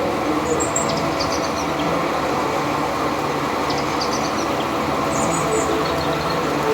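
Metal-working lathe running, a steady mechanical hum and rattle, with a few brief faint high chirps.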